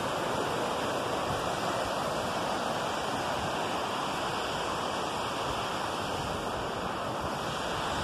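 Steady rushing of water from a waterfall and mountain stream, an even noise with no breaks.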